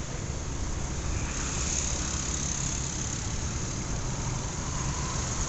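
Road traffic: a steady rumble of motor vehicle engines and tyres on the road.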